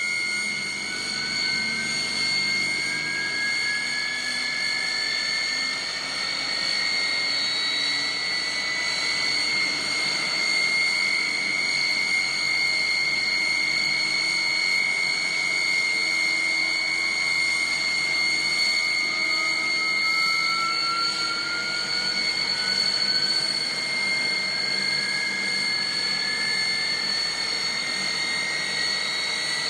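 Jet airliner's turbine engines running at taxi power: a steady high whine over a broad rushing noise. Fainter tones slowly rise in pitch through it twice.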